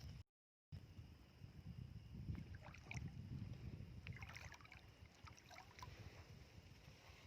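Faint low sloshing of shallow sea water, with a few faint short high sounds around the middle. The sound cuts out completely for a moment near the start.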